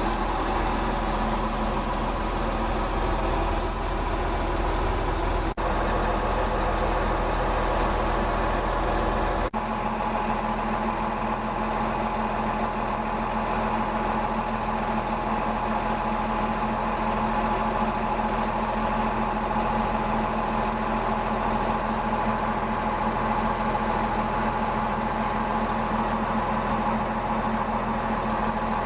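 Bulldozer's diesel engine running steadily, with two very short breaks in the sound, the second followed by a steadier, more even engine note.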